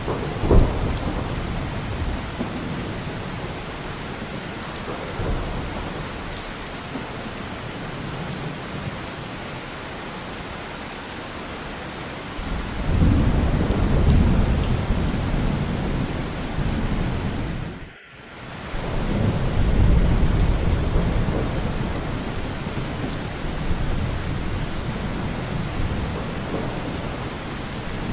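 Steady rain with thunder: a sharp clap right at the start, then long low rolls of thunder past the middle, broken by a brief drop in level.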